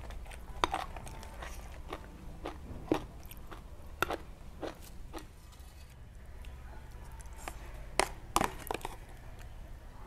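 Close-miked chewing and crunching of bamboo-shoot curry, with scattered sharp clicks and taps and a few louder snaps.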